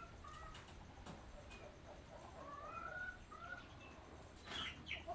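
Backyard chickens calling: a few short rising calls, with two sharper, higher calls near the end.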